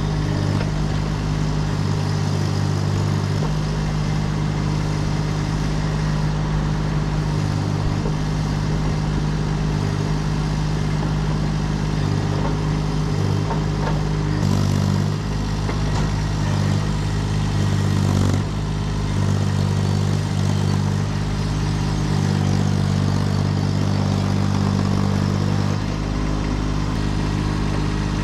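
Kubota D1105 three-cylinder diesel of a Baumalight TRL620D mini track loader running steadily while the machine works. The engine note shifts for a few seconds about halfway through.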